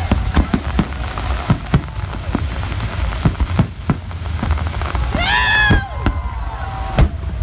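Aerial fireworks exploding: a rapid, irregular string of sharp bangs over a steady low rumble. About five seconds in, a brief high-pitched cry rises above them.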